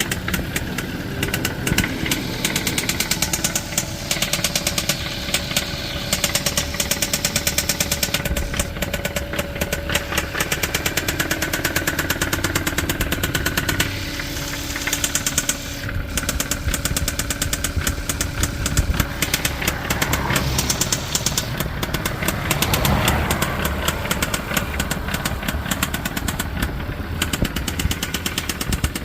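A 2012 Hyundai Veloster's 1.6-litre four-cylinder engine idling with a rapid, regular knock running through it: the sound of its bad motor.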